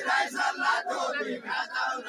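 A group of men singing a Far-western Nepali deuda folk song together, many voices overlapping, over the loud din of a large crowd.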